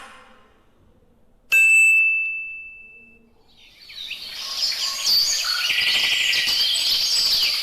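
A single bright bell-like ding about a second and a half in, ringing out and fading over a second or so. Then a chorus of birds chirping fades in and carries on steadily.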